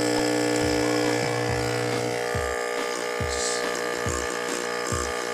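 Electromagnetic diaphragm aquarium air pump running with its casing open, a steady electric buzz that is noisy because the cover is off. It is running again after its broken rubber gasket was replaced, with air now coming out of it.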